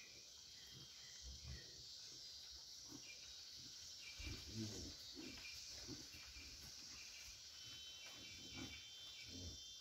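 Faint ambience of a rural corral: a steady insect hiss and scattered bird chirps. A few soft, low animal sounds come about halfway through, as a heifer licks and nuzzles her newborn calf.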